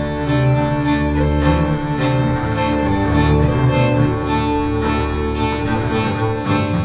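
Folk music trio of fiddle, accordion and double bass playing a tune together, the fiddle leading over held accordion tones and a bowed bass line.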